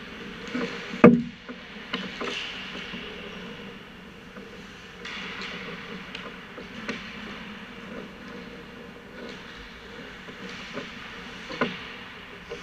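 Ice hockey practice: sharp clacks of sticks striking pucks, the loudest a crack about a second in and more scattered through, over the scrape and hiss of skate blades on the ice.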